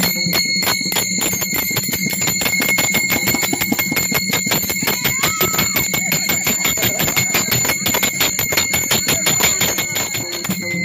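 Small brass hand cymbals (taal) clashed in a fast, even beat, each stroke leaving a bright ringing that hangs on between strikes, as played for a varkari fugadi dance.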